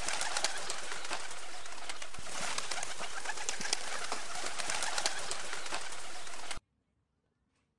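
Rock pigeons cooing over a steady hiss dotted with short clicks, cutting off abruptly about two-thirds of the way through, followed by near silence.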